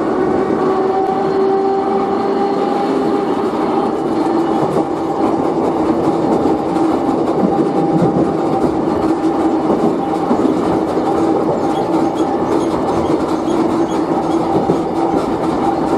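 Kotoden 3000 class car No. 300 running at speed, heard from inside the car. Its nose-suspended traction motors give a steady whine over the running noise, and the wheels click over rail joints.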